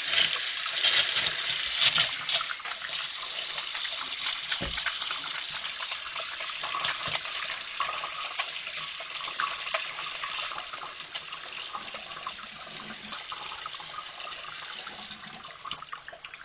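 Water running from a tap while a bar of Castile soap is worked into a lather with wet hands; the steady running water fades out near the end.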